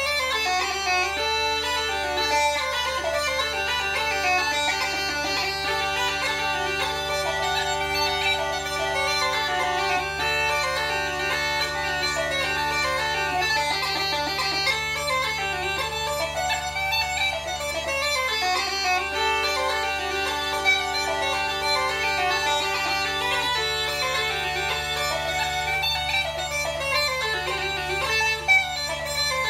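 Uilleann pipes played solo: a reel on the chanter, its quick notes running over the steady hum of the drones.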